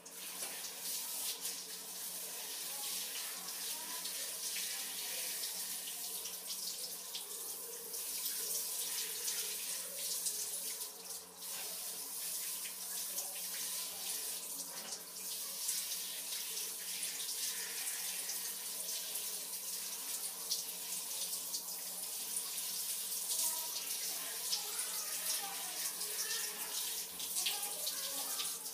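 Water spraying steadily from a handheld shower head onto hair and splashing on a tiled floor as lather and hair dye are rinsed out.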